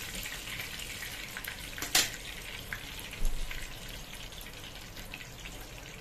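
Hot oil sizzling and crackling in a frying pan as breadcrumb-coated chicken skewers drain on a wire skimmer above it, with a sharp click about two seconds in and a soft knock a second later.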